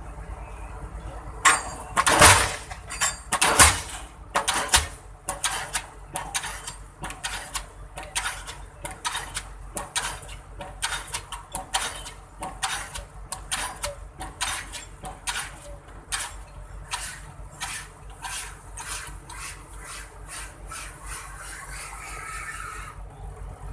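Diesel pile hammer striking repeatedly: a run of sharp metallic blows at about two a second, the first few loudest, stopping shortly before the end, over a steady low hum.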